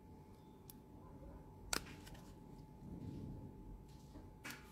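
Faint handling sounds of metal tweezers lifting a nail sticker off its backing sheet: a sharp small click about two seconds in, a light rustle, and a softer click near the end.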